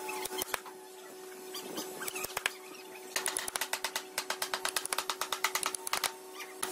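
Narrow chisel being struck in sharp taps as it chops a joint socket into red hardwood: a few scattered knocks at first, then a quick run of about five or six taps a second from about three seconds in, over a steady hum.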